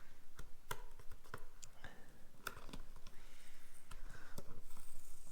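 Light scattered clicks, taps and rustles of a cardboard product box being handled and opened by hand.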